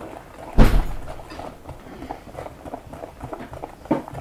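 Batter being beaten by hand in a glass bowl: a metal utensil clicks and scrapes irregularly against the glass. A loud thud comes about half a second in, and a smaller knock near the end.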